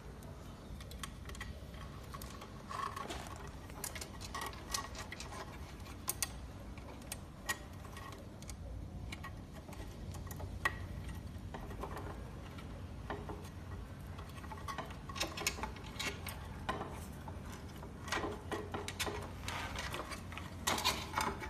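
Irregular small clicks and light rattles of wires and metal parts being handled as the rear motor's cable is threaded through a scooter's frame. The clicks come more often near the end.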